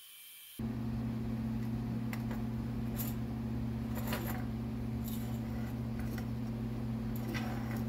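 TIG welder's arc switched on about half a second in, giving a steady electric hum, with a few light metallic clinks of metal parts over it.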